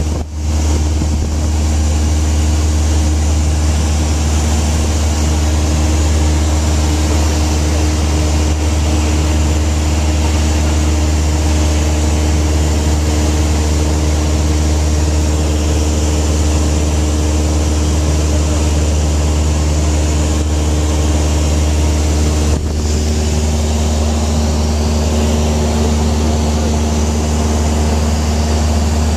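A light single-engine propeller aircraft's engine and propeller drone steadily in cruise, heard from inside the cabin: a loud low hum with steady tones above it and a hiss of rushing air.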